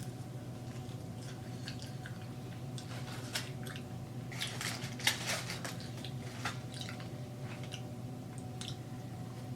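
Close-miked chewing and biting of chicken wings: wet, squishy mouth sounds with sharp crackles of crisp skin, densest about halfway through. A steady low hum runs underneath.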